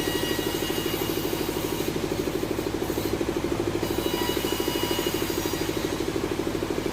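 Sawmill machinery running steadily: a motor's drone with a fast, even pulse.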